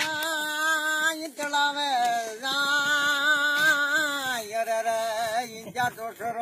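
A man singing unaccompanied, a folk tune in long held notes with a wavering vibrato, the longest about two seconds, broken by short pauses for breath.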